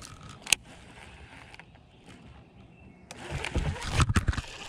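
A single sharp click about half a second in, then from about three seconds in a loud rustle of clothing and hand handling close to the microphone, with several knocks, as the angler swings his fishing rod.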